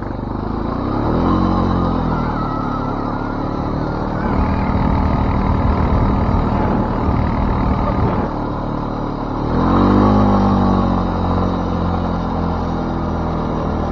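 ATV (four-wheeler) engine running under load while towing sleds through snow, revving up about a second in and again near ten seconds in.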